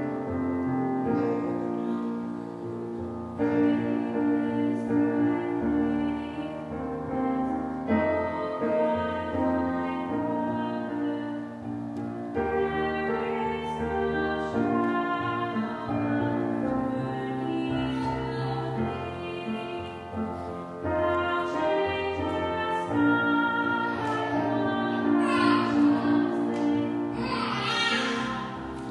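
Slow instrumental keyboard music, with chords and melody notes held long.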